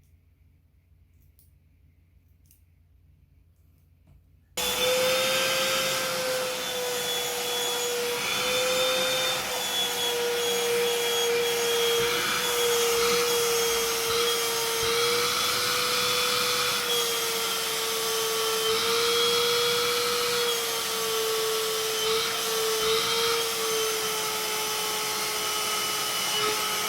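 An electric fan motor switched on suddenly about four and a half seconds in, then running steadily with a high whine over rushing air.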